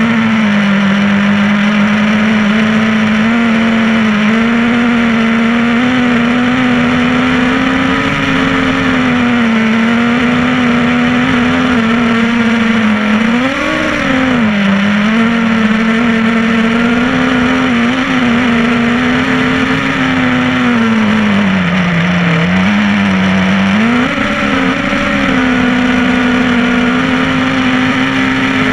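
Sparrow 250 racing quadcopter's brushless motors and propellers whining steadily, heard from the GoPro mounted on the drone. The pitch wavers with throttle, swelling up briefly about halfway through and dipping lower for a couple of seconds later on before settling again.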